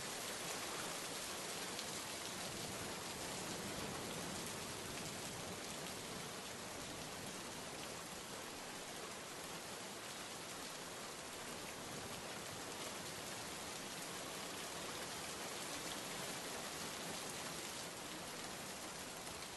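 Steady rainfall: an even hiss of many drops.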